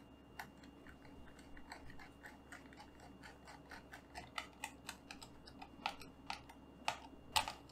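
Faint, irregular small clicks and scrapes of a screwdriver turning the mounting screws of an ID-Cooling IS-40X CPU cooler on a mini-ITX motherboard, the screws being snugged down a little at a time in turn. A few sharper clicks come near the end.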